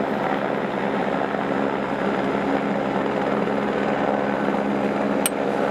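Helicopter running steadily, a constant rotor and engine drone with no change in pitch. A single sharp click near the end.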